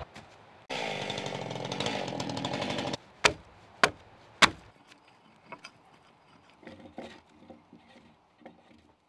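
A small engine runs steadily for about two seconds, then an axe strikes into timber three times, loud and sharp, about half a second apart, followed by lighter scattered hewing knocks that fade away.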